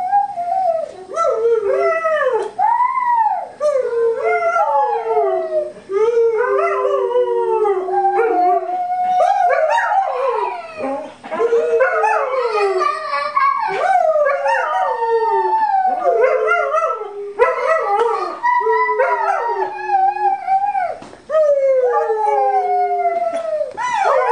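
Pet dog howling along to a song, in long wavering notes that slide up and down, with only brief pauses for breath every few seconds.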